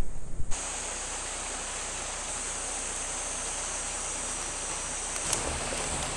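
Steady outdoor hiss with an even high-pitched band; near the end a few faint crackles as dry twigs catch fire.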